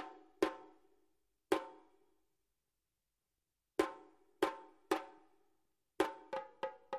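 Soundtrack music: about ten single pitched drum strikes, each ringing briefly. They come two near the start and one a little later, then after a pause in threes, and faster near the end.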